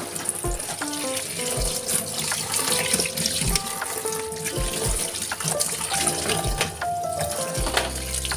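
Tap water running and splashing as plastic containers are rinsed in a stainless steel sink, under background music with a steady beat.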